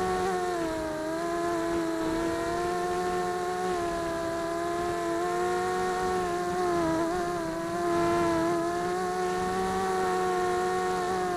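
Four Tiger MT1306 3100kv brushless motors spinning GemFan 5x3 two-blade propellers on a mini H quadcopter, heard from a camera mounted on the frame. A steady whine whose pitch dips and rises slightly with throttle, loudest about eight seconds in.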